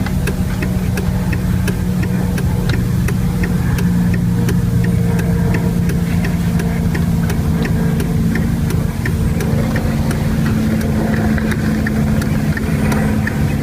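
A motor vehicle's engine idling steadily, with a light regular ticking about three times a second.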